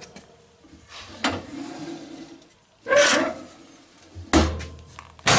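Metal parts of an antique wood-fired cook stove being handled: a few separate scrapes and clunks, loudest about three seconds in and again near the end.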